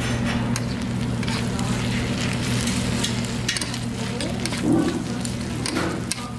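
Metal spoons scraping and stirring fried rice on a hot cast-iron griddle pan, with the rice sizzling and frequent short scrapes and clinks of the spoons against the pan, over a steady low hum.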